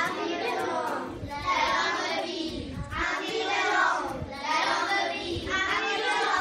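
A class of young children reciting a tongue twister together in unison, in about five short, rhythmic, sing-song phrases.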